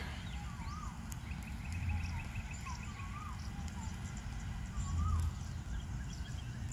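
Several birds calling: short rising-and-falling whistled notes and quick downward chirps, with a fast trill starting about a second in, over a low rumble.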